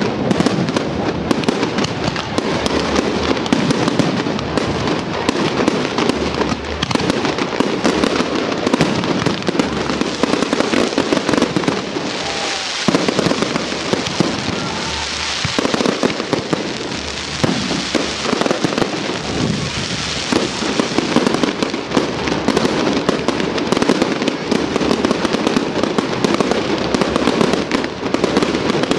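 Fireworks display: a continuous rapid barrage of aerial shell bursts and crackling, with a stretch of hissing crackle near the middle.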